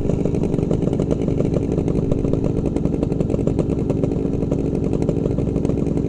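Two-stroke motorcycle engine idling steadily at standstill, with a fast, even putter and no revving.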